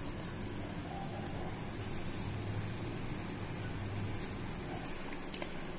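An insect trilling steadily at a high pitch, with a low hum beneath that fades about four seconds in.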